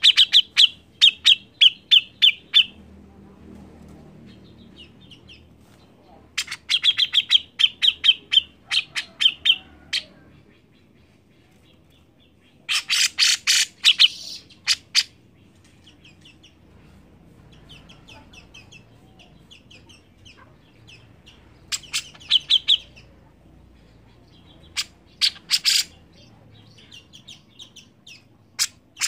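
Caged cucak jenggot (grey-cheeked bulbul) calling loudly in runs of rapid, sharp chattering notes, each run lasting two or three seconds, with about five runs separated by short pauses.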